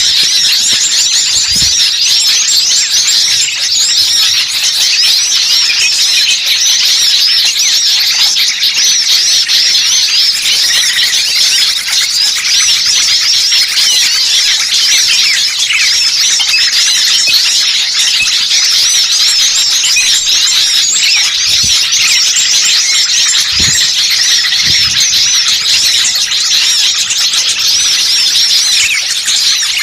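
Loud, dense chorus of many small songbirds chirping and twittering at once in rapid overlapping high-pitched calls: a bird-luring recording of noisy small birds, played to draw in wild birds.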